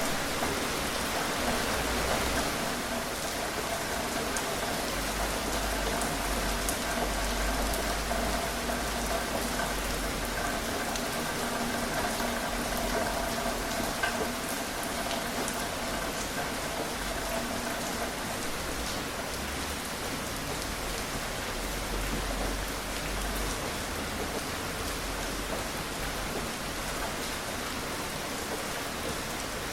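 Steady rain falling, an even hiss with the sharp ticks of single drops here and there.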